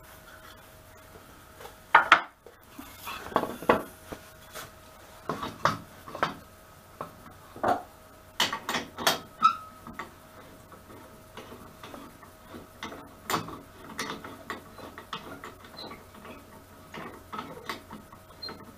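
Irregular clicks and clinks of the grip buttons being moved on the metal Cole-jaw plates of a wood lathe chuck, with knocks as a wooden disc blank is set between them, over a faint steady hum.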